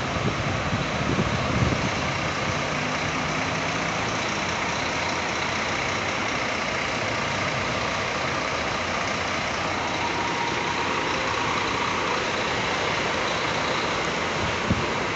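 Double-decker coach's rear-mounted Scania K400 ib diesel engine idling steadily, with a few low bumps in the first couple of seconds.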